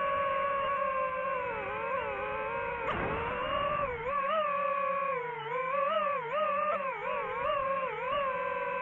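DJI FPV quadcopter's motors and propellers whining. The pitch drops sharply with a brief rush about three seconds in, then wavers up and down rapidly as the throttle changes, before settling steady again near the end.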